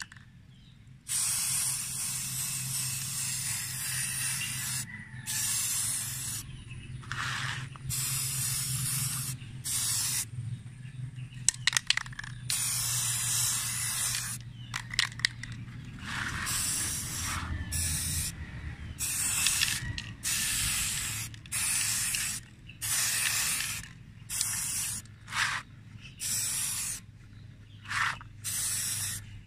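Aerosol spray can of Bosny gray primer hissing in repeated bursts as the primer coat goes onto a motorcycle hub plate. A long first burst of about four seconds is followed by many shorter bursts of a second or two, with brief pauses between.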